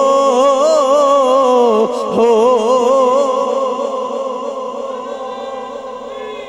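A man's voice holding one long sung note with a wide vibrato: the drawn-out closing 'hoo' of a line of a Punjabi Sufi kalam. The note fades away over the last few seconds.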